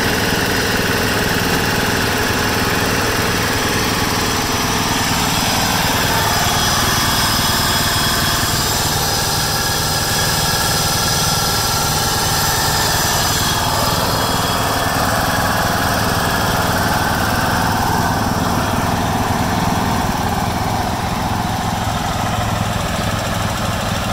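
Kawasaki 14 hp single-cylinder engine of a 1996 John Deere LX176 lawn tractor running steadily at idle. It idles smoothly, without surging, despite years of sitting on old gas.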